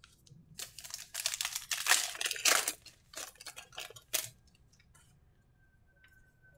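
A trading-card pack's wrapper being torn open and crinkled: a run of rustling crackles lasting about four seconds, loudest in the middle, then stopping.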